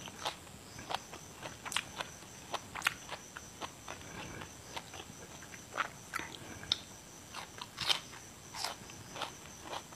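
Close-miked crunching and chewing of crisp raw vegetables: a string of irregular crunches, the loudest a little under 2 s, about 3 s and about 8 s in. A faint steady high-pitched tone runs underneath.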